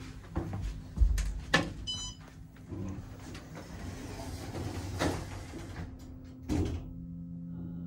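Sliding doors of an OTIS hydraulic elevator car closing, with clicks and knocks along the way, a short high beep about two seconds in, and a thump near the end as the doors shut.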